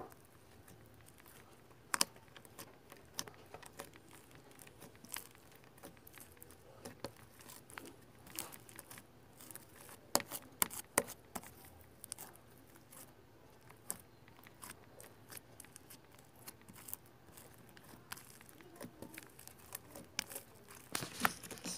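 White slime being squished and pulled apart by hand close to the microphone: scattered sticky clicks and crackles at an irregular pace, a little denser about halfway through and again near the end.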